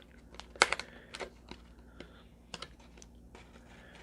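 Hands working at a sealed cardboard product box to get it open: a scattered series of sharp clicks and taps. The loudest cluster comes just after half a second in, with more around one second and two near two and a half seconds.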